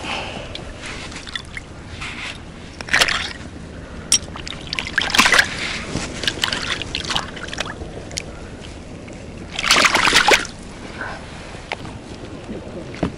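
Water splashing and sloshing as a freshly bled pink salmon is rinsed by hand in shallow river water, a few splashes with the loudest about ten seconds in, over the steady sound of the flowing river.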